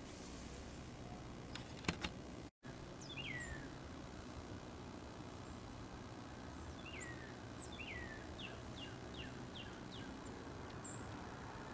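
Small songbirds calling at a backyard feeder station over a low, steady background hum: a few separate down-slurred chirps, then a quick run of about five short notes. Two sharp clicks about two seconds in are the loudest sounds.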